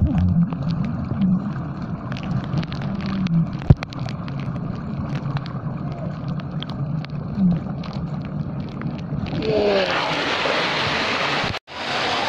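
Muffled underwater sound of a waterfall's plunge pool: a low churning rumble with many small clicks and ticks and a few wavering low tones. About nine and a half seconds in, the microphone breaks the surface and the waterfall's bright splashing hiss comes in, cut off briefly near the end.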